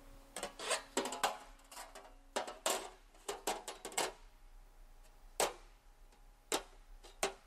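A string of irregular sharp taps and clicks, a metal straightedge set down and shifted against a hand-formed sheet-metal fender panel to check its curve.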